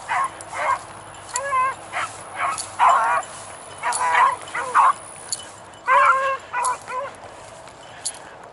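Beagles baying as they run a track, a string of short pitched bawls and yips in quick bursts that stops about a second before the end.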